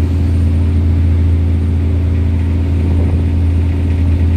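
Sportfishing boat underway: a steady low engine drone that does not change, over water rushing along the hull and wake.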